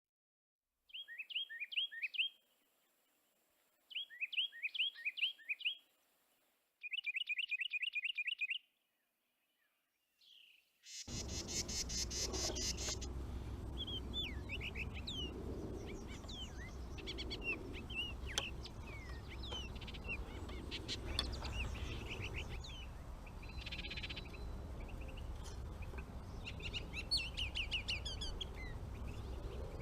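Songbird chirping: three short runs of quick, repeated down-slurred chirps over silence, then from about eleven seconds in, outdoor background with many scattered bird calls over a steady low rumble.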